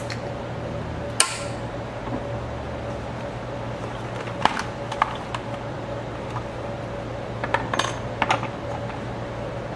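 Scattered small clicks and metallic clinks of projector parts and tools being handled: one sharp one about a second in, a couple mid-way and a quick cluster near the end, over a steady low hum.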